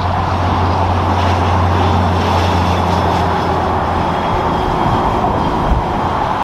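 Volvo roll-off truck hauling a dumpster past on a highway: a steady low diesel engine drone with tyre noise, among other passing cars. The drone fades about five seconds in as the truck moves off.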